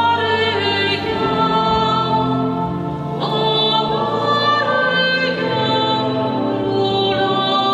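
Slow church music with singing: long held notes that move to a new pitch about once a second.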